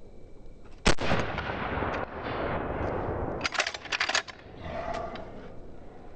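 Pump-action shotgun fired once about a second in, the shot echoing for about a second; a couple of seconds later a quick series of metallic clacks as the slide is worked one-handed to eject the empty shell and chamber the next.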